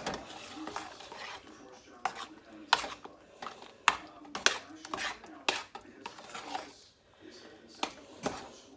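A metal spoon stirring thick mashed potatoes in a stainless steel pan, scraping and clinking against the pan's sides in irregular knocks about once or twice a second.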